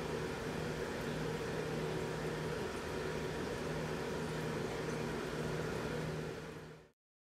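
Steady machine hum with a constant hiss, a low drone and a higher hum held throughout, fading out about a second before the end.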